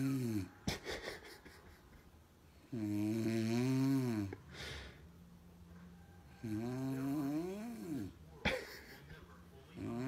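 A woman snoring in her sleep: a long, loud, low snore about every three and a half seconds, with quieter breathing and a few short clicks in between.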